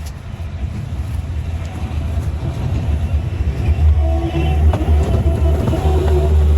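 A machine engine running steadily with a deep rumble. Music with held notes comes in over it about four seconds in.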